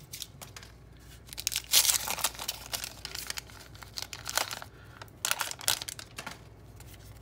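Wax paper wrapper of a 1987 Topps baseball card pack crinkling and tearing in the hands in several short bursts, as the card stack is worked free of the wrapper and the stick of gum stuck to it.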